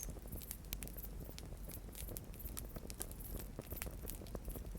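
Campfire crackling: burning wood giving off irregular sharp pops and snaps, over a steady low rumble.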